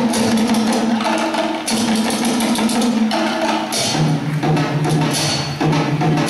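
Drum ensemble of bongo-style hand drums struck with sticks, a marching bass drum and a dhol, playing a fast, dense rhythm over a low held note that drops in pitch about four seconds in.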